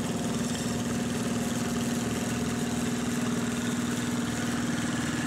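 Wheel Horse garden tractor engine running at a steady speed.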